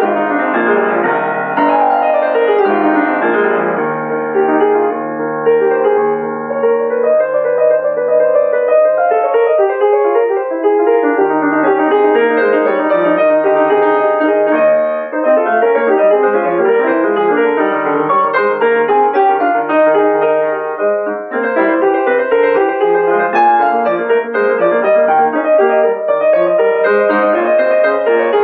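Grand piano played solo: many quick notes in continuous flowing passages, with held low notes sounding beneath them in several stretches.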